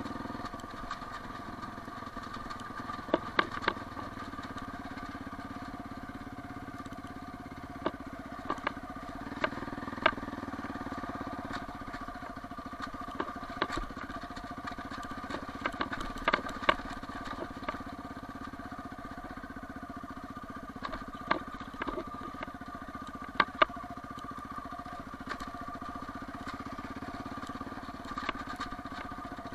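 Quad bike (ATV) engine running steadily at low speed, with sharp knocks and rattles now and then as the machine jolts over a rough, stony dirt track.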